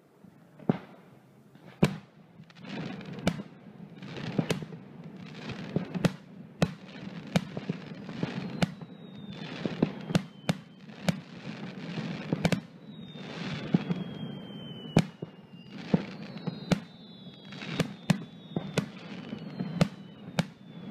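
Aerial fireworks display: shells bursting with sharp bangs about once a second over a steady low rumble, and from about halfway through several high whistles falling in pitch among the bursts.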